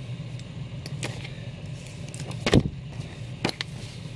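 A stack of comic books being handled and set down: a few short paper slaps and knocks, the loudest a thump about two and a half seconds in, over a steady low hum.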